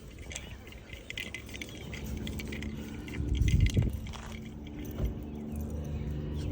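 A distant engine drones steadily with a constant pitch, coming in about two seconds in and carrying on. A loud low rumble passes over the microphone about three and a half seconds in, with light clinks scattered throughout.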